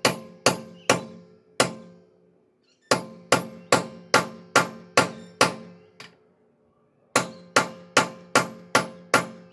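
Hammer blows on steel, about two and a half a second in three runs with short pauses, each blow ringing. A hammer is being used on a rounded, stuck wheel lug nut to try to break it loose.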